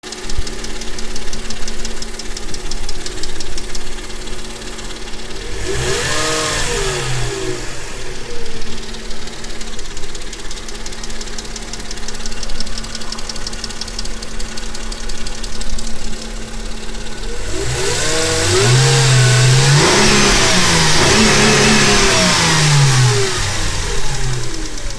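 Car engine idling with a rhythmic knock. It is revved up and back down once about six seconds in, then blipped several times in a row from about eighteen seconds in. The knock is the engine fault being demonstrated.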